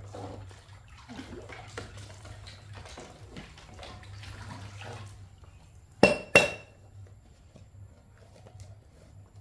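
Kitchen dishes and metal utensils clinking as they are handled, then two loud sharp metal clanks about six seconds in.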